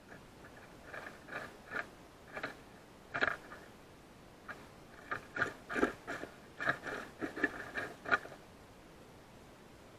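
Gray squirrel foraging in dry leaf litter right at the camera, making a run of short, irregular crunches and scrapes from about a second in until near the end.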